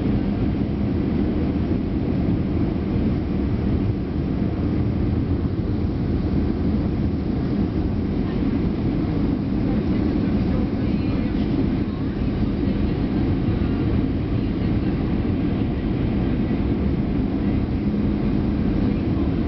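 Airbus A319 passenger-cabin noise on approach to landing: the engines and rushing air give a steady low rumble that holds even throughout.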